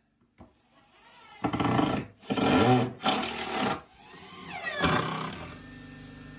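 DeWalt cordless drill driving screws into wood in three short bursts, followed by a softer whir.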